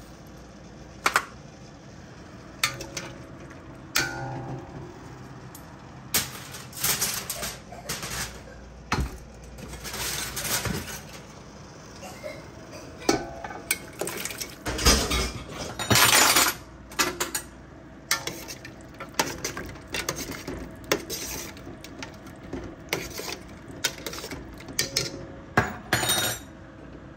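Metal kitchen utensils, tongs and a metal strainer, clinking and scraping against a cooking pot in an irregular clatter of sharp knocks and short scrapes.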